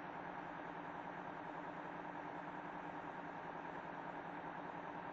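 Faint steady hum with a few faint steady tones running through it, unchanging throughout.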